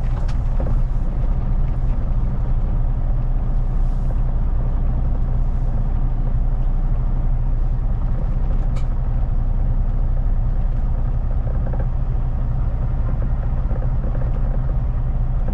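Kenworth T880 semi truck's diesel engine running steadily at low revs. A single sharp click sounds a little past halfway.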